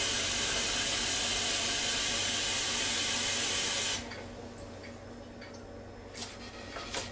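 Kitchen tap running hot water steadily into a glass measuring jug, shut off abruptly about four seconds in, followed by a couple of faint clicks.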